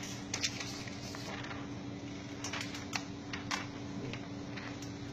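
Ricoh office copier running with a steady hum, with irregular clicks and taps over it.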